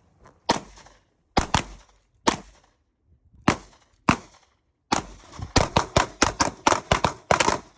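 Pistol gunfire: six single shots spaced about half a second to a second apart, then, from about five seconds in, a fast string of more than a dozen shots.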